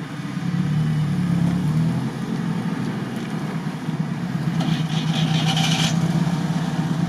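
Off-road vehicle engine running steadily at a low, even drone during a winch recovery from a bog, swelling slightly about half a second in. A hissing rush joins for a little over a second near the middle.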